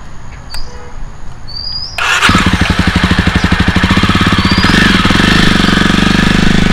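Jawa Perak motorcycle's single-cylinder engine starting about two seconds in, catching at once and running with a rapid, even exhaust beat that settles into a steady note. Birds chirp faintly before it starts.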